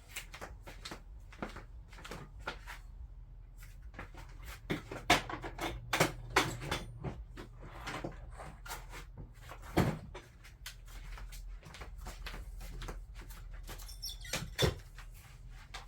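Irregular clicks and knocks of a cordless drill being handled and fitted into a two-post drill guide, plastic and metal parts bumping together.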